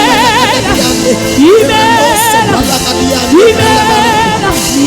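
Live gospel music: a voice holds notes with a wide vibrato over steady band accompaniment, with repeated swooping upward slides in pitch.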